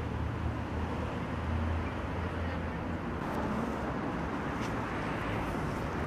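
Steady street traffic noise: a low rumble under an even hiss, with a few faint ticks in the second half.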